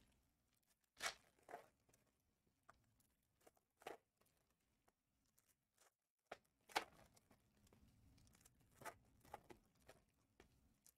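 Faint, scattered rustles and light clicks of trading cards and card-pack wrappers being handled, with the sharpest ones about a second in and again a little past halfway.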